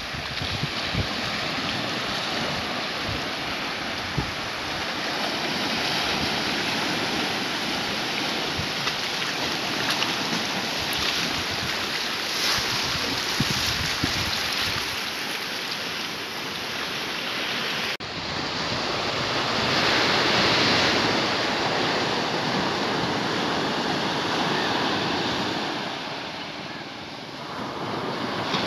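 Sea surf breaking and washing over rocks and onto the shore, a steady rushing that swells and eases, with wind buffeting the microphone. The sound cuts abruptly about two-thirds through, then the surf comes back louder.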